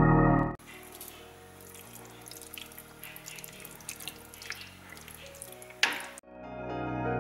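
Wet squelching and clicking of a spatula stirring chunks of syrupy pineapple through thick pastry cream in a saucepan, with one sharper knock about six seconds in. Organ-like music plays loudly for the first half second, then cuts out, and swells back in near the end.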